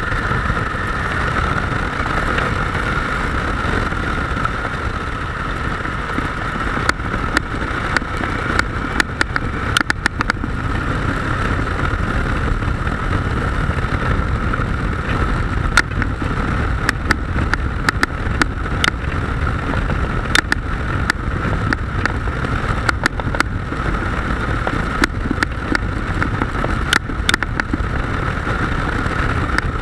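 Motorcycle riding at speed: steady wind rush on the microphone over the engine's drone, with many sharp ticks and knocks from about seven seconds in.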